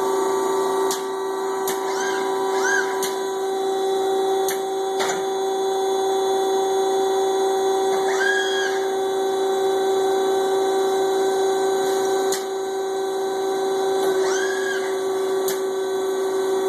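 Almco spindle finishing machine running, with a steady electric hum and high tone over an even hiss of parts spinning in abrasive media. A few brief whines rise and fall over it, with occasional sharp clicks.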